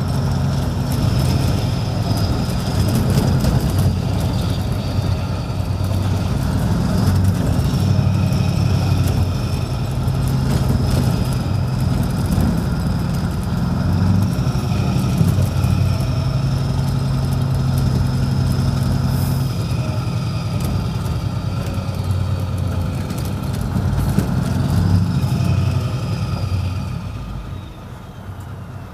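Scania 164L 580 V8 diesel with an open, valved exhaust, heard from inside the cab while driving at city speed. Its deep engine note rises and falls with throttle and gear changes, with a faint high whine over it. The engine sound drops away sharply near the end as the truck eases off.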